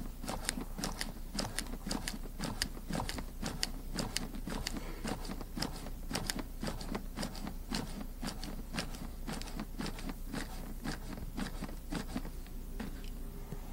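CPR training manikin clicking under rapid, steady chest compressions: an even run of sharp clicks, several a second, as the chest is pushed down and springs back.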